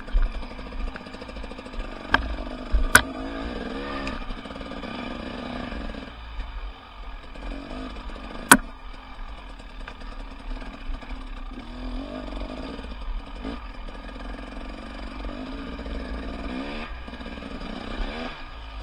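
Off-road enduro motorcycle engine running over rough ground, its note rising and falling with the throttle. A few sharp knocks come through, the loudest about eight and a half seconds in.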